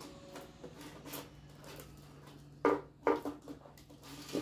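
Plastic bottle pushed around on a marble floor by a puppy: light scuffing, then a quick run of hollow knocks a little past halfway.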